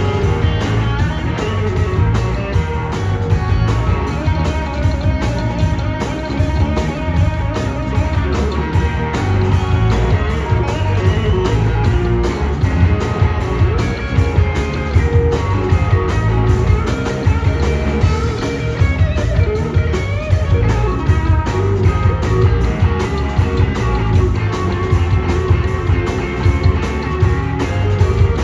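Live band playing a fast blues-rock instrumental, a lead electric guitar over a quick, steady beat.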